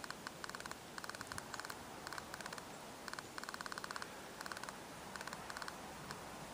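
Footsteps crunching and squeaking in very cold, dry snow: a short burst of crisp crackles with each step, coming about twice a second.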